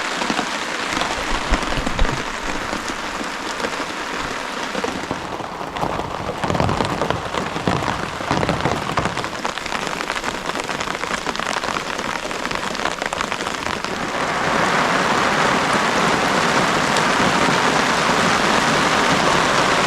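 Heavy rain pattering densely on a tarp overhead, growing louder about two-thirds of the way through.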